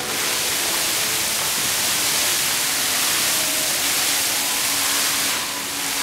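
Water jets of a dancing fountain shooting up and splashing down, a steady rushing hiss that eases slightly near the end.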